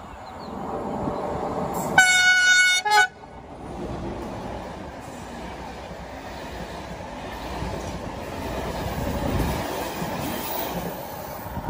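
Electric locomotive of an Intercidades train sounding its horn about two seconds in: one blast of about a second, then a short second one. The train's coaches then roll past with a steady rumble and rail noise.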